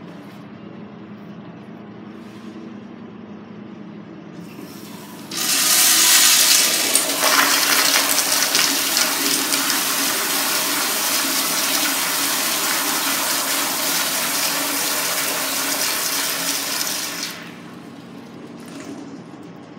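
Eljer toilet flushing on a flushometer valve: a loud, steady rush of water starts about five seconds in, runs for about twelve seconds, then cuts off fairly sharply as the valve closes.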